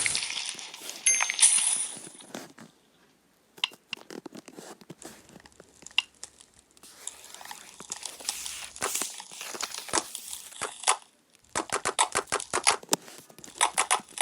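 Slime being squished and poked by hand, making crackling, crinkly pops and clicks. The popping comes thick and fast for the last few seconds, after a short quiet spell about three seconds in.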